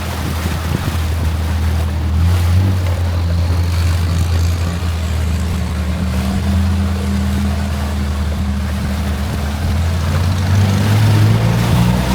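Longtail boat engine running steadily under way, its pitch shifting near the end.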